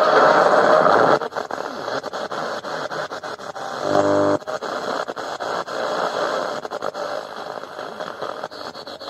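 Si4732-based ATS25X1 shortwave receiver's speaker hissing with AM static while it is tuned across the 25-metre band near 11.7 MHz. The noise cuts out briefly again and again as the dial steps. A louder signal comes through for about the first second, and a short snatch of a station about four seconds in.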